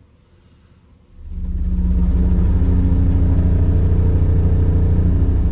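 A 12-inch NVX VCW122 subwoofer playing a 30 Hz sine test tone, driven by an NVX VAD10004 Class D amplifier at about 650 watts. The deep tone comes on about a second in and then holds steady at one level.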